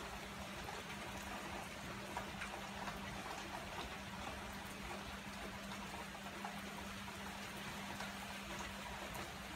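Steady rain falling, an even hiss with scattered drops ticking close by, over a low steady hum.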